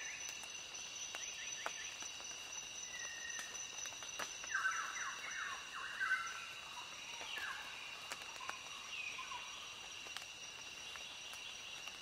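Outdoor nature ambience: a steady high-pitched insect trill with bird calls over it, and a burst of quick chirping about four to six seconds in.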